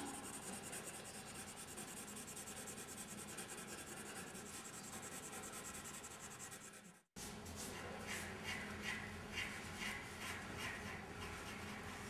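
Pencil scratching on drawing paper in quick repeated strokes, about two to three a second, starting after a brief gap about seven seconds in; before that only a faint steady hiss.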